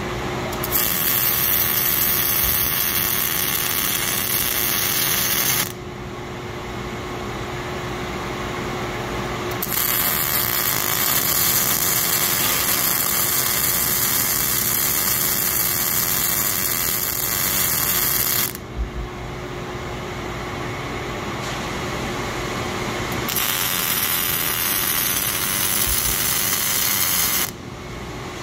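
Robot-held MIG welding torch arcing on steel: three runs of steady crackling and hissing, about five, nine and four seconds long, each starting and stopping abruptly, with a lower steady machine hum in the gaps between welds.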